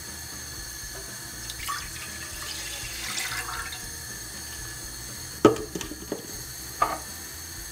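Water poured into an enamelled pot, then a wooden spoon knocking against the pot a few times while stirring. The first knock, about five and a half seconds in, is the loudest.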